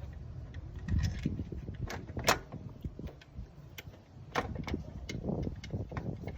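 Scattered metal clicks and clanks of hand tools at work in a car's engine bay, the loudest about two seconds in.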